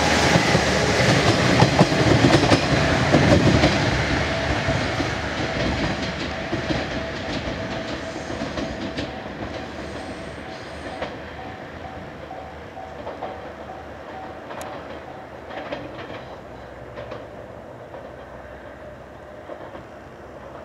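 KiHa 110 series diesel railcar pulling away, its diesel engine running and its wheels clacking over rail joints and points. It is loud at first and fades steadily as the train draws into the distance.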